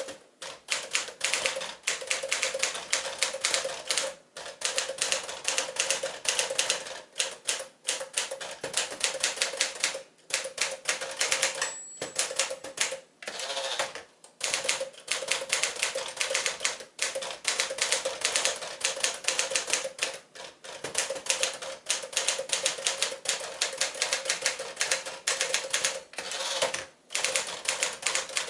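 1957 Smith-Corona Sterling manual typewriter typing fast, a quick clatter of keystrokes broken by several short pauses. A short high ring sounds about twelve seconds in.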